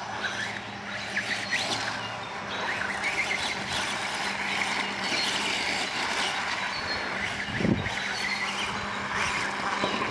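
Radio-controlled dirt bike running on a dirt track, its motor revving up and down in short rises of pitch over a steady hum. A dull thump about three quarters of the way through.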